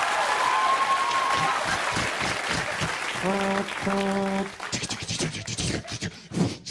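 Studio audience applauding, with a buzzer sounding twice, short and steady, about three seconds in; the applause then thins out.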